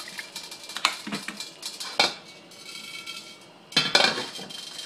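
Metal clanks and knocks on a stainless-steel wok, each ringing briefly: one about a second in, a sharper one at two seconds, and a louder cluster near four seconds.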